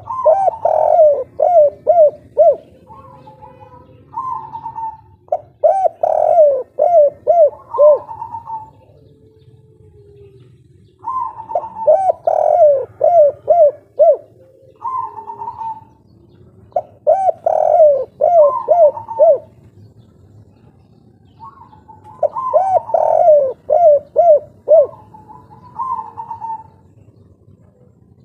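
Spotted dove (derkuku) singing the 'kuk 3' cooing song: five phrases, one about every five to six seconds. Each phrase is a quick run of coos followed by two or three shorter, higher notes.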